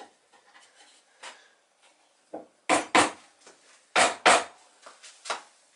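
Sharp wooden knocks and scrapes as a thin wooden keel strip is pushed and tapped into the groove cut in a red-pine hull slice, test-fitting it. The knocks come in two loud pairs a little over a second apart, with a softer knock before and after.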